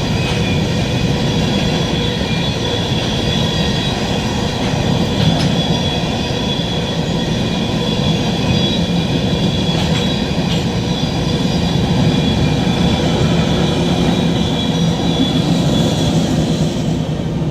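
Empty freight cars rolling past on the rails, a steady rumble with thin, high wheel squeal and a few clicks of wheels over rail joints.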